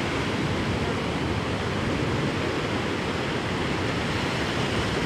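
Ocean surf breaking and washing on the shore, a steady noise with no pauses.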